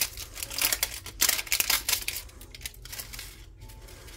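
Plastic clicking and rattling as a small building-brick toy police truck is handled and turned over in the hands. There is a quick run of irregular clicks and clatters, busiest in the first two seconds, then softer.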